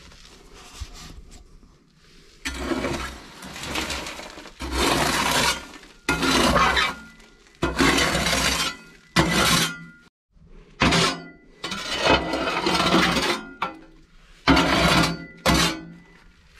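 Metal shovel scraping ash out of a solid-fuel boiler: about ten rough, grating scrapes of a second or so each, with metal clinking against metal.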